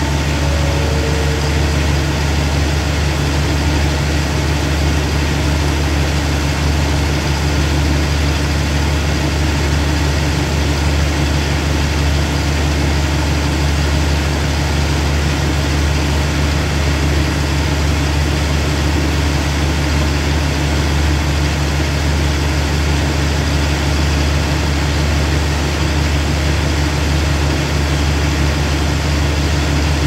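Diesel engine of a stopped passenger train idling with a steady low hum, over the even hiss of heavy rain. Three short falling tones sound in the first two seconds.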